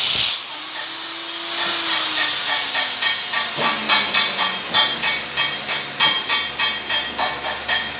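A stick-welding (SMAW) arc's crackling hiss cuts off just after the start. From about three and a half seconds in, a chipping hammer strikes steel in quick sharp knocks, about two a second, typical of chipping slag off a fresh weld bead.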